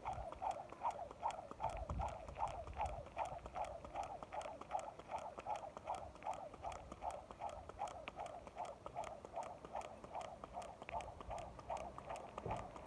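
Jump rope turning at a steady pace, the rope slapping the ground about three times a second.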